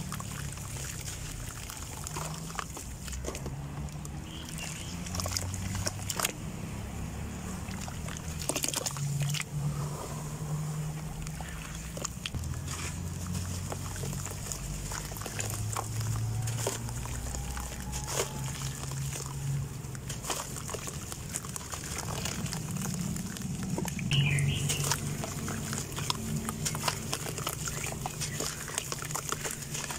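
Dry red dirt block crumbled by hand over a tub of water: gritty crumbling with many small clicks as crumbs and dust fall and splash into the water, and wet dirt squeezed and sloshed. A low, uneven hum sits underneath.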